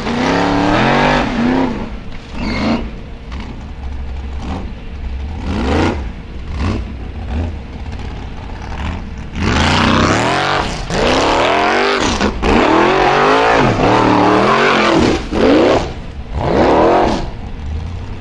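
Formula Offroad buggy's race engine revving hard in repeated throttle bursts as it climbs a steep gravel slope. The pitch sweeps up and falls back with each burst, first in a few short blips, then in near-continuous full-throttle revving through the second half.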